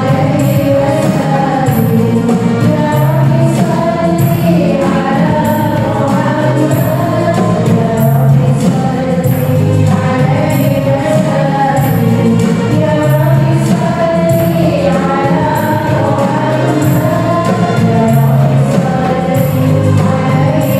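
Live sholawat/qasidah music: voices singing an Islamic devotional song together over keyboard and frame drums, with a steady beat throughout.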